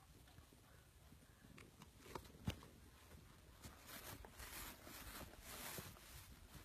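Husky puppies' paws scrabbling faintly, with two sharp knocks a little past two seconds in, then a run of scratchy rustles through the second half.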